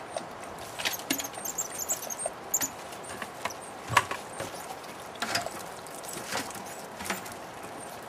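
Baby coatis moving about, with scattered clicks and scratches of claws on wood and bark and a few short, high chirps about one to two and a half seconds in; one sharper knock about four seconds in.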